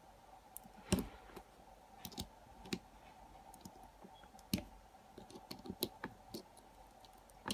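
Irregular small metal clicks and taps of tools working on a lock clamped in a vise while it is taken apart, the loudest about a second in and a quick run of them near the middle.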